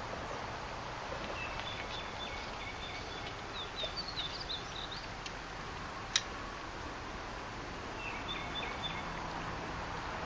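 Birds chirping in short high strings, some notes sliding up or down, over a steady outdoor hiss of wind and moving water; the chirps come between about one and a half and five seconds in and again near the end. A single sharp click about six seconds in stands out as the loudest sound.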